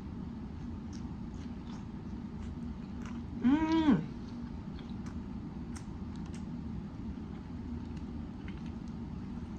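Chewing a grinder sandwich: small wet mouth clicks over a steady low hum. About three and a half seconds in, one short loud voice-like call rises and falls in pitch.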